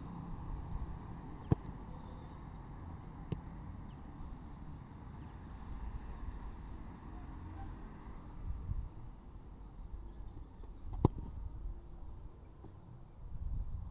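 A football being kicked: a sharp thud about a second and a half in and a louder one near the eleventh second. Faint insects chirp in the background.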